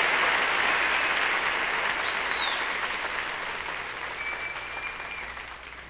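Concert audience applauding, played back from a mono vinyl LP of a live recording, dying away gradually. A short high whistle from the crowd falls in pitch about two seconds in.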